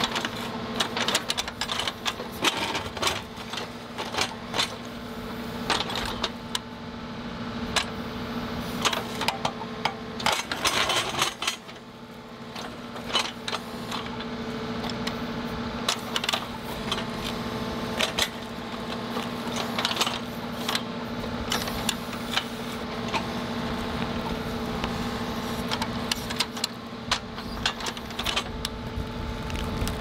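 A John Deere 2038R compact tractor's three-cylinder diesel runs steadily, working the backhoe. Over it comes a string of sharp cracks and snaps as the ripper tooth tears a small stump's live roots out of the ground; the cracks come thickest in the first half.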